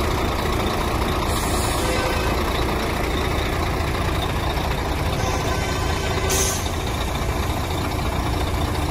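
HOWO 6x4 dump truck's diesel engine running steadily at idle, with two short hisses about one and a half and six seconds in.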